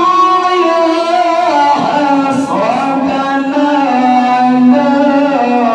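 A man's voice reciting the Quran in the melodic tilawah style into a microphone. He sings long held notes that step slowly down in pitch, with a brief hissing consonant about two and a half seconds in.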